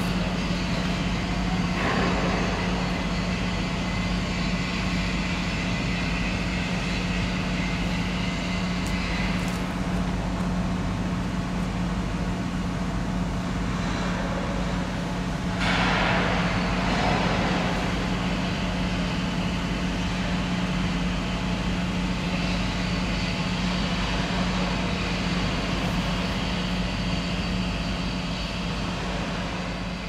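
Industrial ambience of a shipyard building hall: a steady machinery hum with a constant low drone under a wash of noise, and a brief louder rush about sixteen seconds in.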